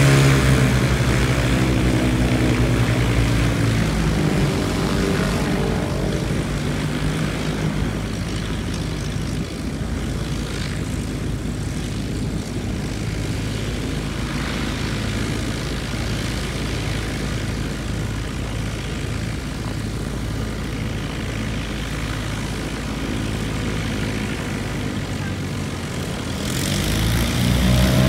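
Cessna 195's radial engine running loud as it rolls past, its note sliding lower and fading over the first few seconds. Then the steady, quieter drone of a distant light-aircraft engine. Near the end a twin-engine Piper's engines grow louder as it taxis close.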